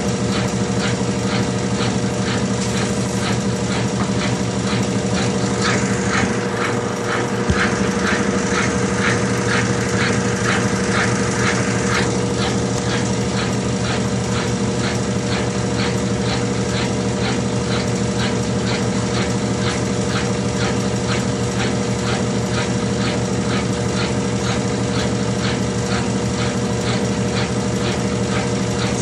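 Consul CWH12 12 kg washing machine running, a steady motor hum with a quick, even ticking.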